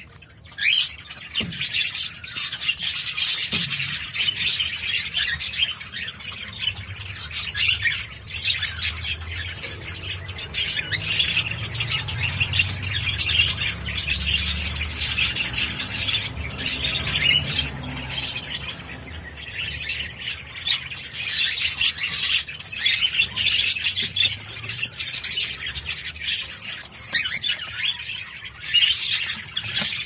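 16-year-old male budgerigar warbling and chattering almost without pause, a dense run of quick high chirps mixed with squawky notes.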